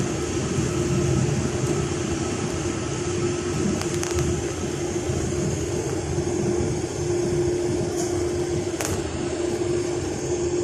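Steady cabin noise of a moving vehicle: low road rumble and hiss with a constant hum over it, and a few faint clicks around the middle and near the end.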